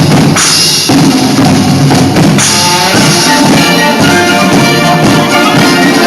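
Band music with drums: snare and bass drums keep a steady beat under pitched instruments, with bright hits about half a second in and again near two and a half seconds.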